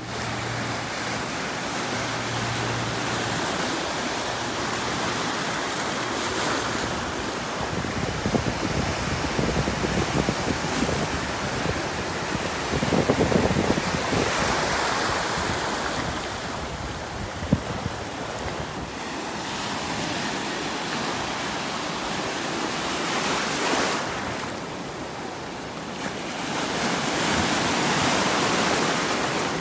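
Ocean surf, waves breaking and washing in, rising and falling in loudness every few seconds, with wind buffeting the microphone.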